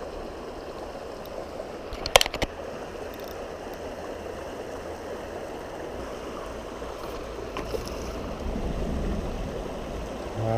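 River water rushing steadily over the riverbed. About two seconds in, a brief clatter of sharp clicks stands out as the loudest sound.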